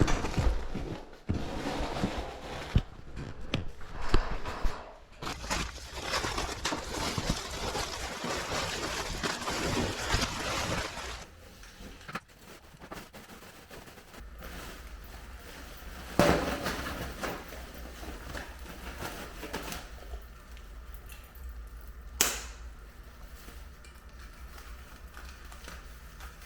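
Hands working with ductwork and insulation: rustling and crinkling with scattered knocks and clicks, a long spell of rustling in the first half, then two sharp knocks further on.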